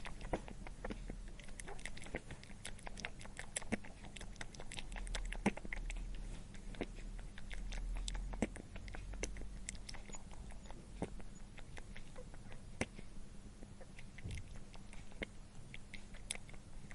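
A rabbit chewing crunchy food: a rapid, irregular run of crisp crunching clicks, with a steady low hum underneath.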